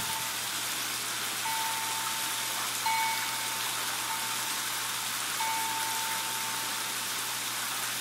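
Garden pond waterfall splashing over rocks: a steady hiss of falling water. A thin steady tone at one pitch comes and goes several times over it, each lasting up to about a second and a half.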